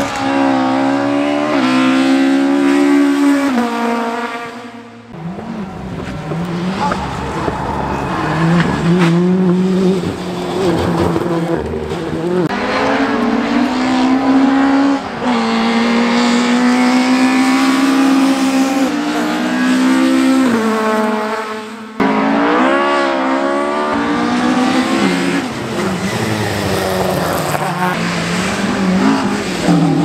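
Rally car engines, Ford Escort Mk2s among them, revving hard as the cars drive past one after another. The revs climb and drop with gear changes and lifts, and the sound jumps abruptly to a new pass about five seconds in and again past twenty seconds.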